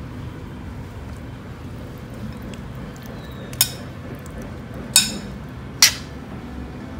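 Metal serving utensils clinking against a metal mixing bowl as a salad is tossed: three sharp clinks in the second half, over a low steady hum.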